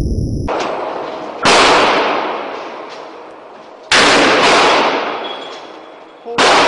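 Three magnum handgun shots about two and a half seconds apart, each a sharp crack that dies away slowly in the echo of an indoor range.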